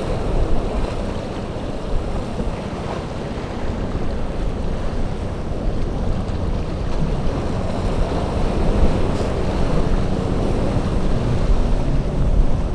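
Wind rumbling on the microphone over rough surf, with boat motors running in the inlet.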